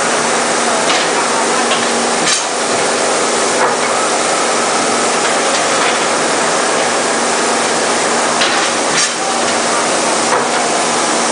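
Lead cathode casting machine running: a loud, steady mechanical din with a low hum and a few sharp metallic clanks scattered through it.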